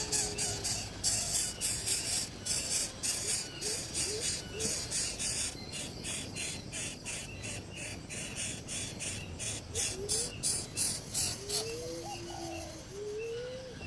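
Animal calls: a fast, uneven series of high, raspy chirps, with a few soft, low rising calls near the end.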